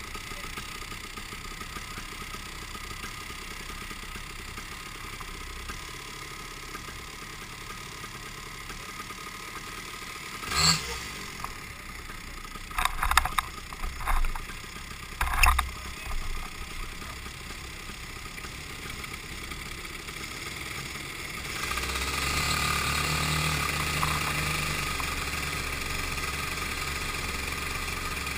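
Hire go-kart engines on track: a steady low drone with a few short loud bursts around the middle, then from about three-quarters of the way in a louder, steady engine note.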